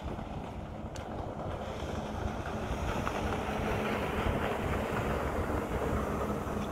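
A jet ski's engine drone growing steadily louder as it approaches, with wind buffeting the microphone.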